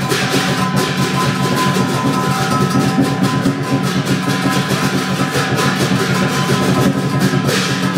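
Chinese lion dance percussion: a drum beaten fast with clashing cymbals, a dense, continuous clatter with a ringing metallic tone held throughout.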